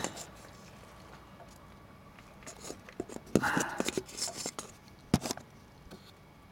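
Handling noise: scattered light clicks and a brief rustling scrape about three and a half seconds in, then two sharp clicks about five seconds in, as hand-held gear is moved about under a car.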